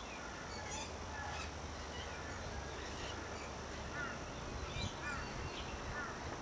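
Several birds calling with short, falling chirps scattered throughout, over a steady low rumble.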